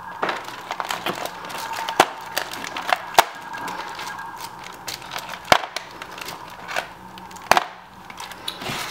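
Hands handling a toy's packaging and small plastic pieces, with crackling and a run of sharp clicks and snaps; the loudest come about two, three, five and a half and seven and a half seconds in.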